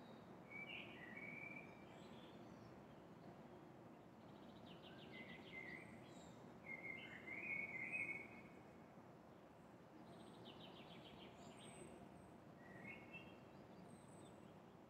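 Songbirds singing faintly in short chirping phrases, with a rapid trill twice and thin high notes, over a steady low hum of city noise. The bird phrases are loudest a little past the middle.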